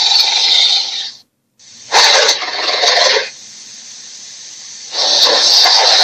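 Loud, hissing monster sound effect. It cuts out about a second in, returns in a short burst, sinks to a quieter hiss and swells loud again near the end.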